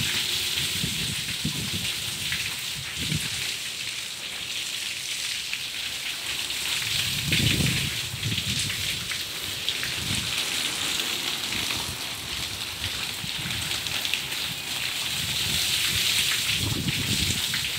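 Water pouring down from a freshly cast concrete roof slab and splashing onto the floor below, a steady rain-like hiss; the slab is being flooded with water to cure it.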